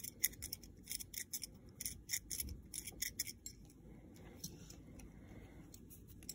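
Hand reamer in a pin vise being twisted in the end of a freshly cut brass tube held in pliers, making a quick run of faint metallic scraping clicks that thins out after about three and a half seconds. The reamer is reopening the tube end that the knife cut pinched closed.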